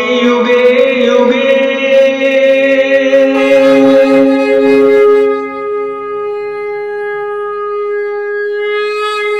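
Ceremonial horns blown in long, steady held notes. About five seconds in the sound drops in level and settles to a single quieter held tone.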